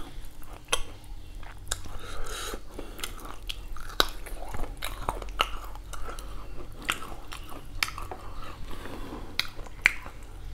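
Close-up chewing of a mouthful of rice and beef curry eaten by hand, with irregular wet mouth clicks and smacks about once or twice a second.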